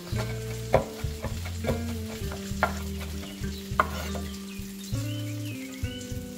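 Chef's knife chopping fresh parsley on a wooden cutting board: sharp knocks of the blade on the wood about once a second, with the rustle of the leaves, stopping about four seconds in. Soft background music with a low bass line runs underneath.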